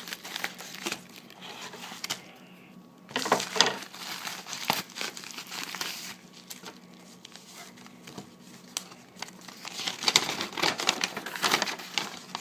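Card packaging crinkling and rustling as trading cards are unwrapped and handled, in bursts about three seconds in and again from about ten seconds.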